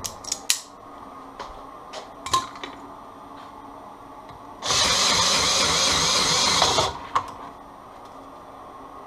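Cordless drill driving a cable-stripping roller, running steadily for about two and a half seconds as a wire is fed through to strip its insulation. Before it come a few sharp clicks and knocks of handling, and one more click follows.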